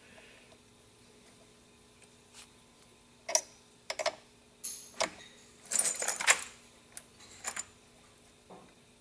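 Torque wrench and deep socket clicking and clinking on a diesel injector's nozzle cap nut as it is tightened to torque. The metal clicks come in a few scattered groups, the loudest cluster a little past halfway.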